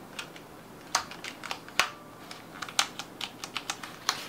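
Irregular light clicks and taps, about fifteen in a few seconds, of a freshly unboxed mechanical keyboard being handled and set down among its packaging.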